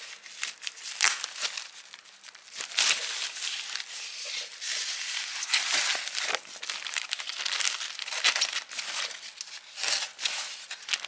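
Thin white packing wrap crinkling and rustling as hands unwrap and handle it, with many irregular sharp crackles.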